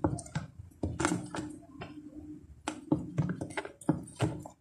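Irregular clicks, taps and knocks of small plastic containers and supplies being handled and set down while someone rummages for a tub of clay.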